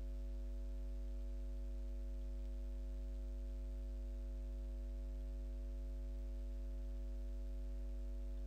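Steady electrical mains hum: a low buzz with a stack of higher overtones, unchanging in level and pitch.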